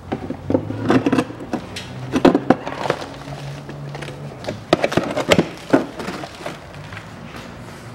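Plastic front wheel-arch liner being bent and pulled aside by hand, with a string of sharp knocks and clatters as it flexes against the body.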